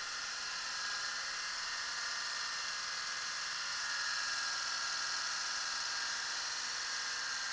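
Car engine idling steadily under an open hood, a high whir with faint whining tones and little low rumble. It grows slightly louder about four seconds in.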